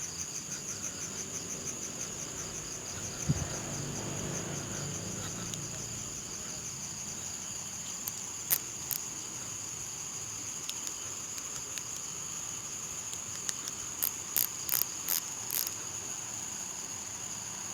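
Insects trilling steadily on one high, finely pulsing note, in the manner of crickets. A few sharp clicks stand out about halfway through and again in a quick cluster near the end.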